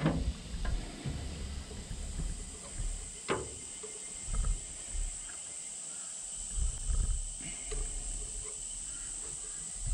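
Irregular low bumps and rumbles as a seized, rusted part on a Fiat 615 tractor is wrenched back and forth by hand, rocking the tractor; the part is still very tight. One sharp metallic click comes about three seconds in.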